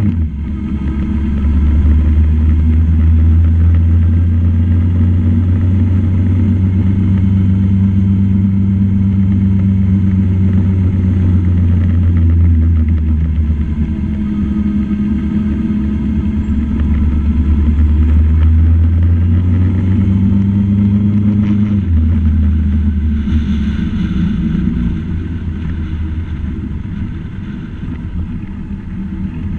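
Motor vehicle engine running as it drives along a town street, with a low rumble of road and wind noise. The engine note shifts a few times, and the sound gets somewhat quieter near the end.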